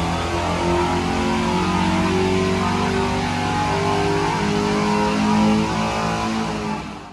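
Carbureted 436-cubic-inch stroker small-block Chevy V8 pulling at full throttle on an engine dyno, its pitch rising steadily as it sweeps up to about 6,500 rpm. It backs off and fades near the end. Heard through the dyno control-room window.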